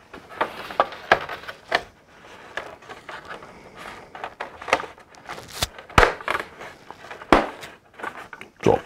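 Plastic parts of a Hasbro Slave I toy spaceship being handled and fitted together: an irregular run of small clicks and taps, with a few sharper snaps in the second half.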